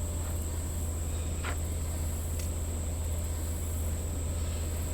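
Insects droning in a steady high-pitched chorus over a constant low hum, with a short falling whistle about a second and a half in.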